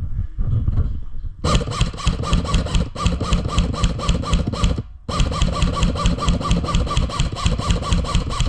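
Airsoft gun firing on full auto: two long, rapid, evenly spaced bursts of about three and a half seconds each, with a short pause between them about five seconds in.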